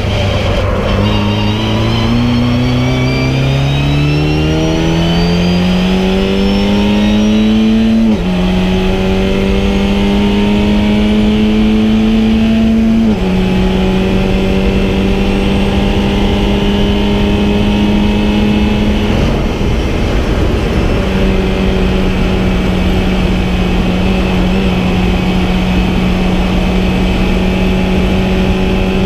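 VW Fun Cup race car's engine heard from inside the cabin at full throttle. Its pitch climbs steadily and then drops at upshifts about eight and thirteen seconds in, followed by a long stretch at nearly steady high revs with a brief dip about two-thirds of the way through.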